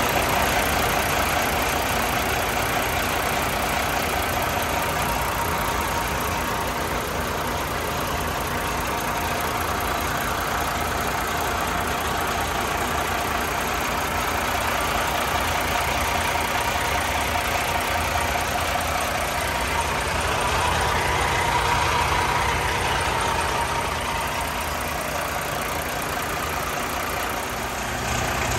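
Volvo D13 turbo-compound diesel engine of a semi truck idling steadily.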